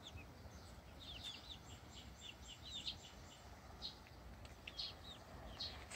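Young chickens peeping faintly in quick clusters of two or three high chirps, then scattered single chirps, over faint steady background noise.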